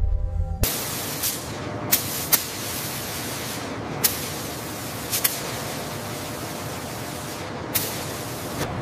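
Compressed-air paint spray gun hissing steadily as it sprays coating, with a few brief sharp clicks along the way.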